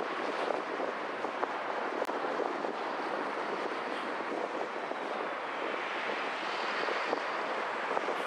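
Steady road and traffic noise of a car driving along a city avenue, with a wind rush, heard from inside the car. A brief click about two seconds in.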